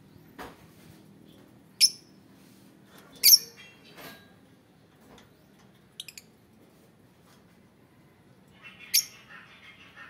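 Caged lovebirds giving short, sharp, high-pitched squawks: loud single calls about two seconds in, about three seconds in and near the end, with a quick triple chirp around six seconds.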